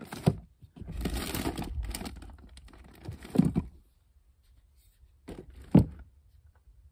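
Handling noises as camping gear is moved about: a rustle lasting about a second, a few knocks, and a sharp thump about a second before the end.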